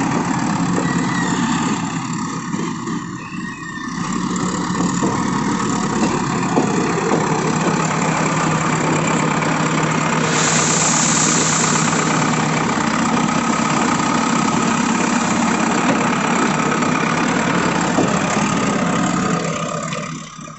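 Diesel engine of a JCB 3DX backhoe loader running steadily, with a brief high hiss about ten seconds in. The sound drops away just before the end.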